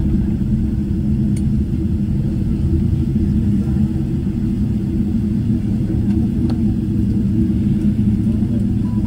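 Steady low rumble inside the cabin of a Boeing 777-300ER during landing, with a couple of faint clicks about a second and six seconds in.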